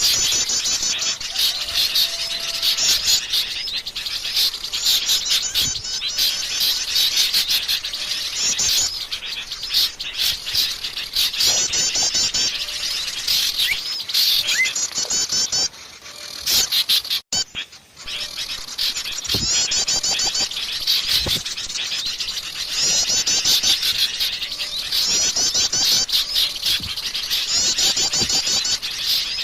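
Wild forest birds singing: repeated rapid, high chattering phrases about a second long, one after another, with a short break a little past halfway.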